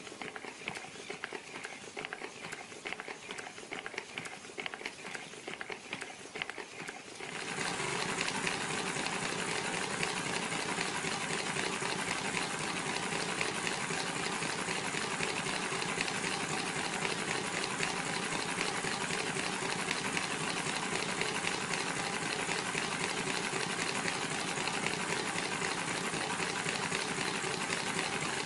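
Miniature multi-cylinder model internal-combustion engine running with a rapid, even mechanical clatter. About seven seconds in it becomes louder and fuller, then runs steadily.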